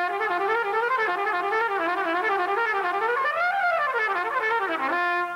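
Solo trumpet playing a fast, flowing line of notes that winds up and down, climbs to a high peak about midway, dips low, then settles on a held note near the end.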